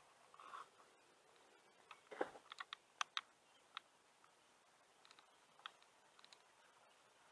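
Near silence with a scattering of faint, irregular clicks and taps, most of them in the middle of the stretch.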